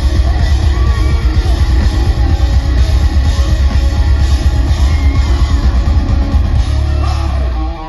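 Loud live rock band playing heavy, guitar-driven music with a strong bass. Just before the end the bass cuts off abruptly and the sound drops to a quieter level.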